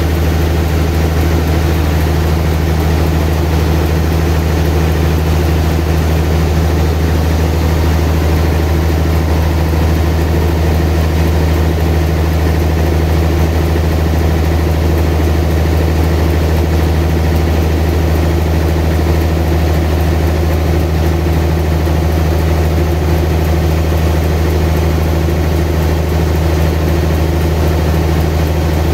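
Sawmill machinery running steadily with a constant low drone, as a large trembesi log is fed through the saw.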